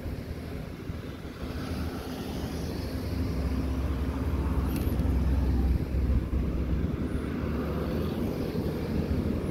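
Passenger cars driving past one after another, a steady rumble of tyres and engines that swells as each goes by.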